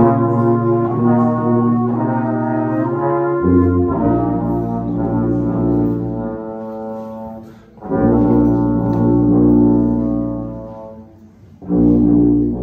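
A brass trio of flugelhorn, tuba and trombone playing long held chords over a sustained tuba bass, in phrases that swell and fade away. New chords enter together about three and a half seconds in, again at about eight seconds and near the end.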